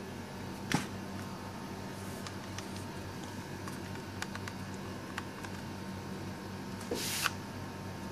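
Handling noise over a steady low electrical hum: one sharp click about a second in, a few faint ticks, and a brief rustle a second before the end, as a USB plug and cable are handled at a laptop.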